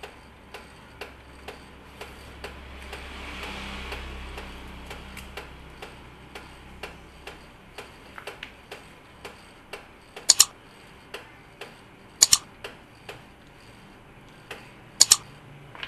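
Canon imageRUNNER ADVANCE 6075 copier warming up at start-up: a low motor hum with a hiss that swells and fades over the first seven seconds, over steady ticking about twice a second, with several much louder double clicks in the second half.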